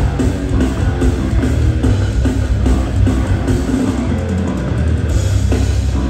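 Rock band playing live through a PA system: drum kit and electric guitar.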